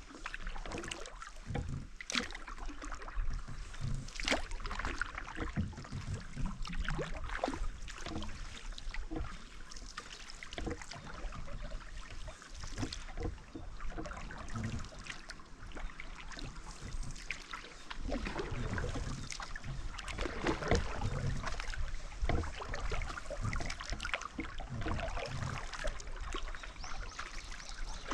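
Canoe paddles dipping and pulling through calm lake water, with irregular splashes and drips from the blades.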